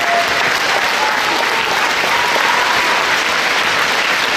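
Large arena crowd applauding steadily, with a few drawn-out cheers above the clapping.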